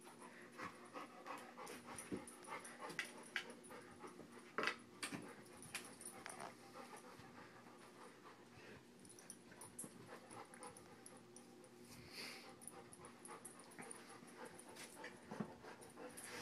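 English mastiff puppy panting, with scattered short clicks and knocks as it moves against a wooden rocking horse, the loudest knock about four and a half seconds in, over a faint steady hum.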